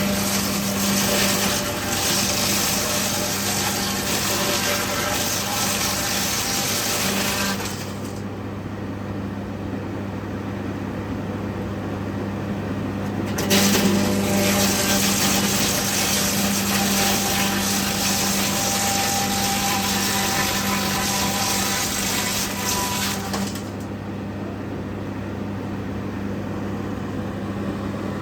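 Electric woodworking machine running with a steady hum. A loud hiss, like wood being cut, rises over the hum for two stretches of several seconds each and drops back in between and near the end.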